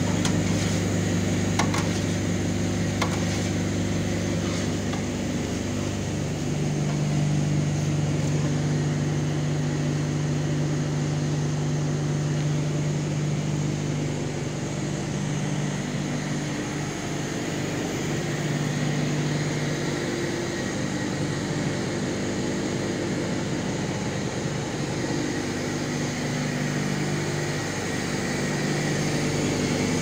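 Jaggery plant machinery running: a steady mechanical hum whose low drone shifts in pitch a few times, over a constant hiss.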